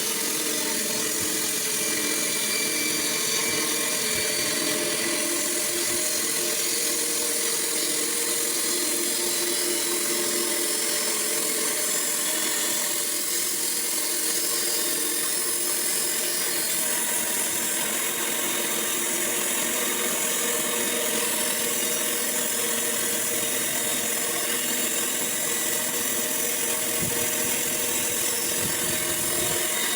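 Sawmill running steadily while sawing a log into boards, a continuous machine sound with a hissing high edge.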